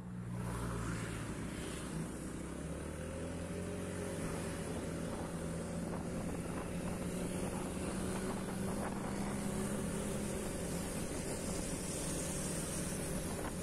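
Motorcycle engine running steadily while riding along the road, with a continuous hiss of wind and road noise.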